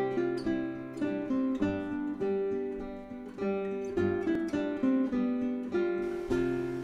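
Instrumental intro music: a melody of quickly picked notes, each note starting sharply and dying away.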